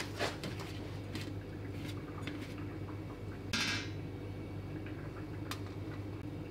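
Coarse panko breadcrumbs rustling and crunching as hands press and scoop them over a cutlet in a stainless steel tray, with light scattered taps on the metal and one longer, louder rustle about three and a half seconds in. A low steady hum runs underneath.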